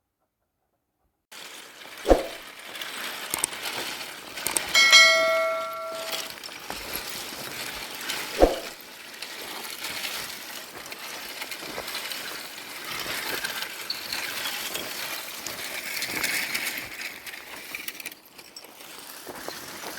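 A single bell-like metallic ring lasting about a second, with a sharp knock a few seconds before it and another a few seconds after, over a steady background noise.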